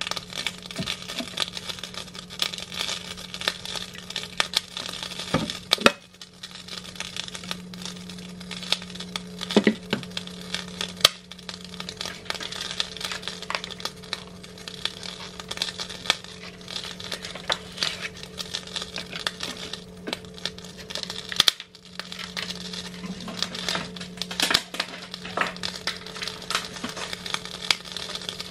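Hot oil crackling and spitting in a frying pan, a dense run of small pops over a steady low hum.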